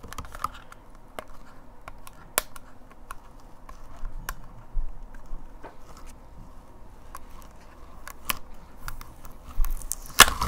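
Clicks and taps of hands struggling to open the plastic and cardboard packaging of a powder blush compact: scattered small handling sounds, with the loudest clatter near the end.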